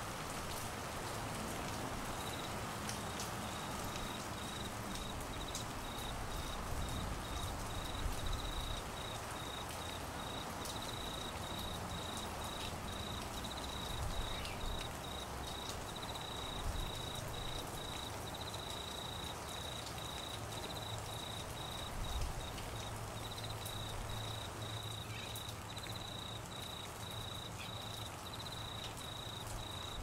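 Steady rain falling, with an insect trilling in fast, even pulses at a high pitch from about two seconds in.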